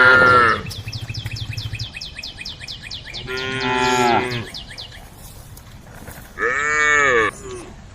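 Cattle mooing: three long moos, the first ending just after the start, the next about three seconds in and the last about six and a half seconds in.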